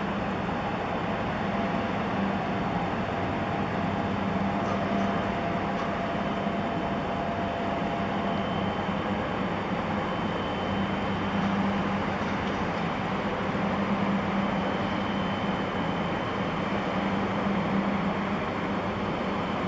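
Ship's engine running steadily: a low drone with a hum that fades and returns, under an even wash of noise.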